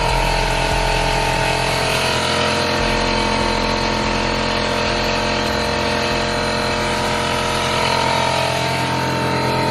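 Air-driven vacuum coolant refill tool running, a steady hiss with a steady hum underneath, pulling vacuum on the cooling system before it is refilled with coolant.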